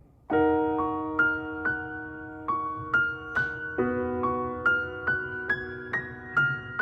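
Piano music: a gentle intro of single notes struck about twice a second and left to ring.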